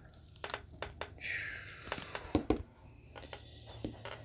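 A sleeved trading card being handled in gloved hands and slid into a rigid plastic top loader: scattered light plastic clicks, with a short sliding rustle about a second in.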